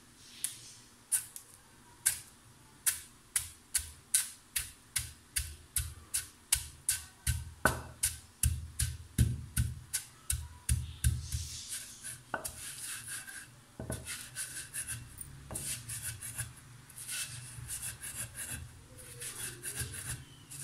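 Wooden pestle pounding cream-filled wafer biscuits in a marble mortar: sharp knocks a little over two a second. About twelve seconds in, the pounding gives way to grinding, a steady scraping rub of pestle and crumbs against the stone.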